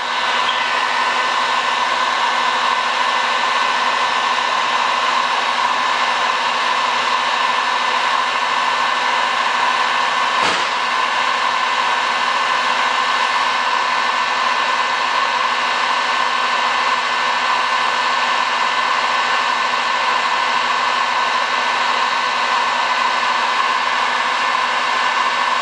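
Handheld electric heat gun running steadily, its fan blowing an even hiss of air with a faint steady whine. There is one short click about ten seconds in.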